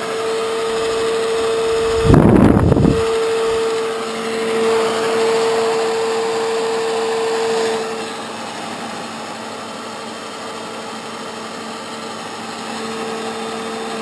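Vintage Supreme Bakelite hair dryer running on its cold setting: a steady motor hum with air blowing. About two seconds in, its airflow gusts across the microphone for a second in a loud rumble, and the hum drops a little about eight seconds in.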